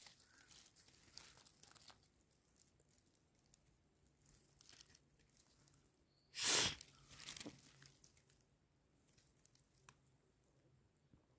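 Quiet, with scattered short rustles and crinkles of hands handling orchid leaves over dry forest litter; one louder, longer rustle about six and a half seconds in.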